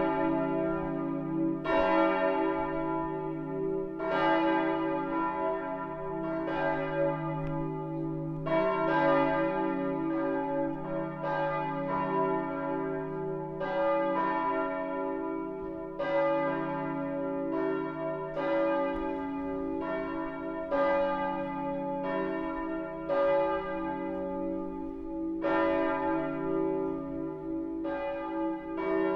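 Full peal of church bells ringing for a Sunday service: several swinging bells strike in an irregular, overlapping pattern, about one strike a second, over their steady low hum.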